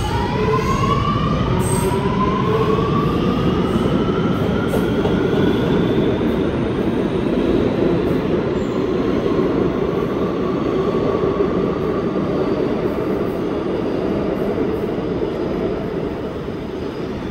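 Kawasaki R211T subway train pulling out of the station and passing close by. The traction motors give a whine that rises in pitch over the first few seconds as the train speeds up, then the cars and wheels keep up a steady loud rumble as they roll by.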